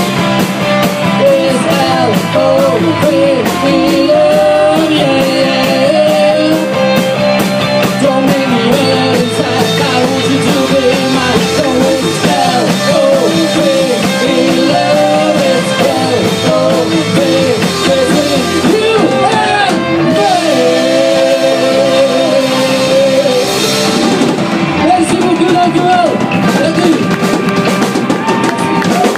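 Live rock band playing loud and steady: electric guitars, bass and drum kit, with a lead line sliding and bending in pitch.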